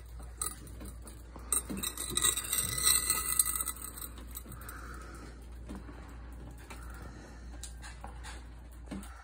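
Glass jar being handled and shifted on a tabletop: clinks and scraping of glass, loudest between about one and a half and three and a half seconds in, then light handling noise.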